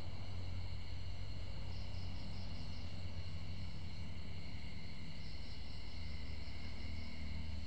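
Steady chorus of insects, several high pitches held without a break, over a steady low hum.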